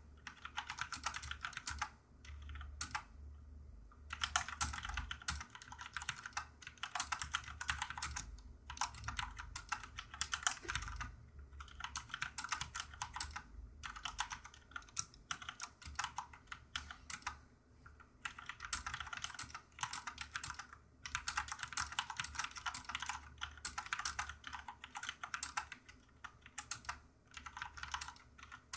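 Corsair K70 RGB mechanical keyboard with Cherry MX Red switches being typed on in fast runs of key clicks, broken by short pauses. The switches are not very noisy.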